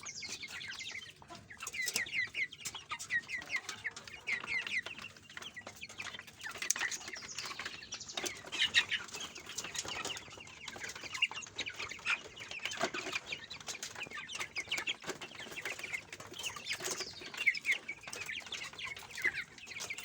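A flock of young chicks peeping continuously as they feed: a dense stream of short, high, falling peeps with scattered small clicks.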